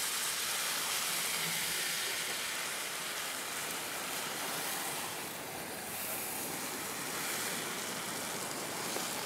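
Whole marinated chicken frying in hot oil in a wide metal pan, sizzling steadily.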